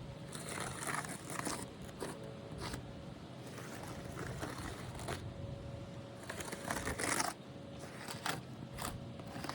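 Intermittent scraping and crunching on gritty asphalt roof shingles, in several short bursts, the longest a bit past the middle.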